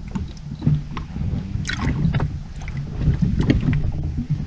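Small waves slapping and lapping against the hull of an inflatable boat, with wind on the microphone and a few irregular knocks.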